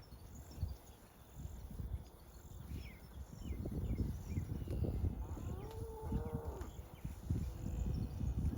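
Cattle grazing close by: irregular crunching as they tear and chew grass, with one short, fairly high-pitched moo about two-thirds of the way through. Small birds chirp faintly in the background.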